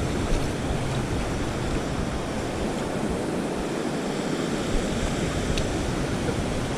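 Ocean surf washing in the shallows: a steady rush of breaking and running water.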